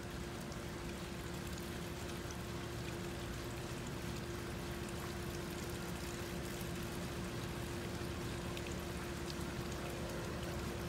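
A thin stream of water from a garden hose trickling and splattering onto concrete and stones, steady throughout, with a steady hum underneath.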